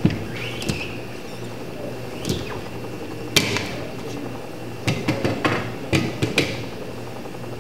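Squeegee scraping across a silkscreen's mesh on a print stroke, then a sharp knock about three seconds in and a quick run of clicks and knocks as the screen frame is lifted and handled, over a steady low hum.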